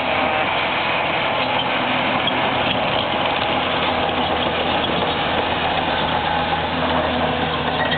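Demolition machine's diesel engine running steadily at a constant drone while the old house is torn down.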